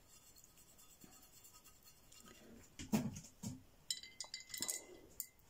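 Faint handling of paint-mixing gear: a knock about three seconds in, then a quick run of clinks that ring briefly near the end, like a brush or palette knife against a glass jar.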